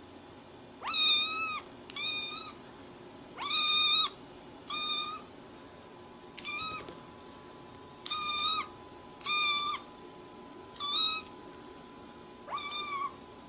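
Kitten meowing repeatedly: nine short, high-pitched mews about a second or so apart.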